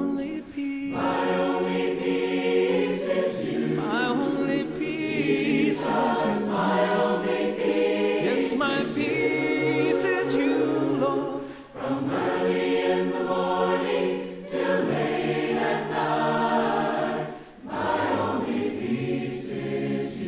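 A group of voices singing a hymn a cappella in harmony, with short breaks between phrases about 12 and 17 seconds in. Churches of Christ sing without instruments.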